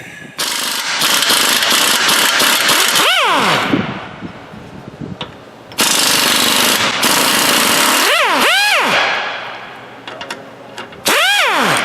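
Pneumatic impact wrench hammering in three long bursts to break loose suspension fasteners, its air motor whining up and back down in pitch as each burst ends.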